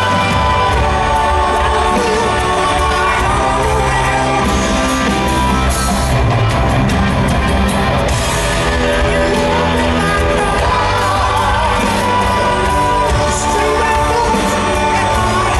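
Live rock band playing loud: drum kit and electric guitar under a singing voice.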